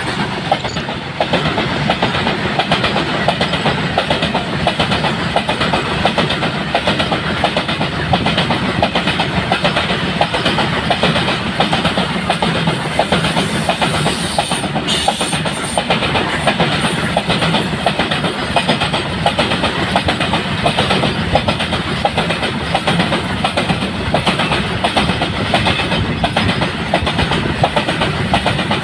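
BCNHL covered freight wagons rolling past close by, their wheels clattering in a rapid, steady clickety-clack over a continuous rumble.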